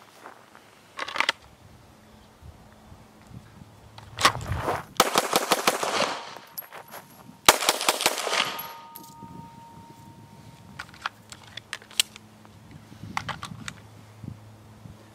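Semi-automatic pistol fired in rapid strings of shots: a fast string about four to six seconds in and another about two seconds later. Fainter clicks come before and after.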